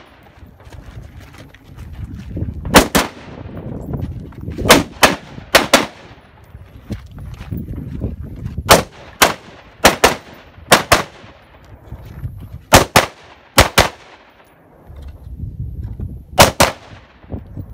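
AR-style semi-automatic rifle fired outdoors in a match stage, about fifteen sharp shots, mostly quick pairs, with pauses of a second or two between strings as the shooter moves between targets.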